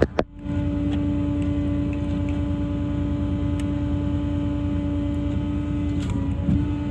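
Steady running hum of the Ram 5500 service truck's 6.7 Cummins diesel, with a constant droning tone. A sharp click and a brief dip in the sound come just after the start.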